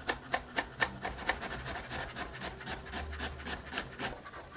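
Chef's knife chopping rapidly on a wooden cutting board, an even run of knocks about five a second, finely dicing green pepper and red onion.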